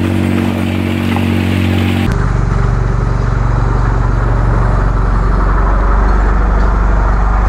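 Polaris RZR side-by-side's engine running as it drives past close by. The sound changes abruptly about two seconds in to a deeper, steadier engine note.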